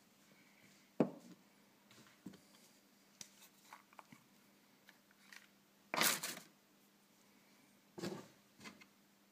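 Small tools and items being picked up and put down on a wooden workbench: scattered light knocks and rustles, with a sharp knock about a second in and a longer, louder rustle about six seconds in. A faint steady hum runs underneath.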